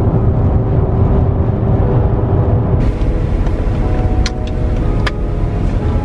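Car interior noise while driving: steady low road and engine rumble inside the cabin, with a couple of faint clicks in the second half.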